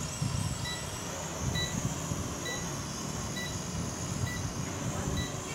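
Small toy quadcopter's rotors whining steadily as it flies, with wind rumbling on the microphone. A short beep sounds about once a second throughout.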